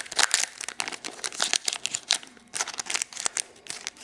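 A trading-card pack wrapper being torn open and crinkled by hand: irregular bursts of crackling, heaviest at the start and again around the middle and toward the end.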